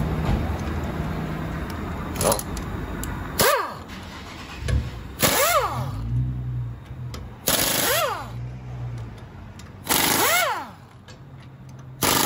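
Pneumatic impact wrench run in short bursts on a car wheel's lug bolts, about every two seconds. Each burst is a rapid hammering rattle, followed by a whine that rises and falls as the air motor spins up and winds down.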